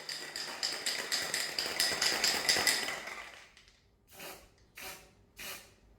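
Aerosol spray-paint can spraying: a continuous hissing spray for about three and a half seconds, then three short bursts.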